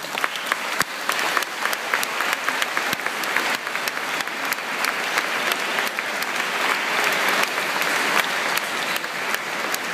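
Church congregation applauding: many hands clapping in a dense patter that swells in the first second or two, then keeps going steadily.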